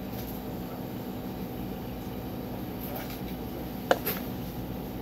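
Steady indoor hum of a convenience store's machinery, with one sharp click just before four seconds in and a couple of fainter ticks after it from handling cups and bottles at the coffee counter.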